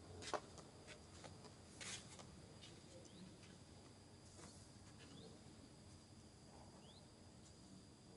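Near silence: faint outdoor ambience with a steady high hum, a few short rising chirps and scattered soft clicks. The loudest is a sharp click less than half a second in.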